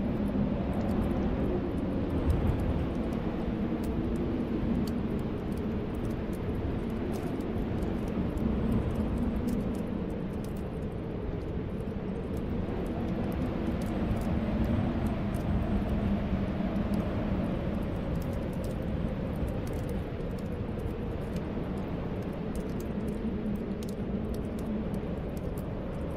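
Snowstorm wind blowing steadily, with a low, wavering whistle, and the light crackle of a fireplace fire over it.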